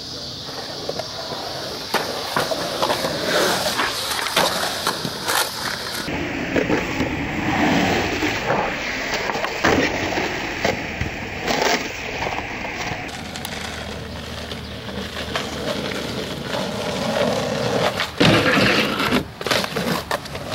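Skateboard wheels rolling on concrete, with sharp clacks of the board's tail popping and landing. The sound changes abruptly twice, and a cluster of loud knocks comes near the end.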